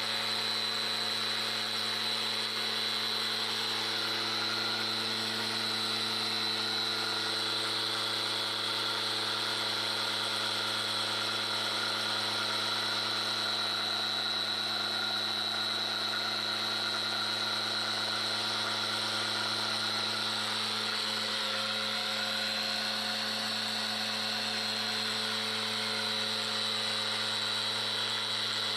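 Small electric grain mill running steadily as it grinds grain into flour: an even motor hum with a high whine.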